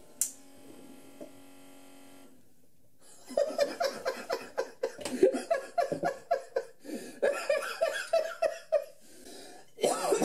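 Keurig K40 brewer's water pump humming steadily, cutting out about two seconds in. After a short pause, a man laughs in short, uneven fits.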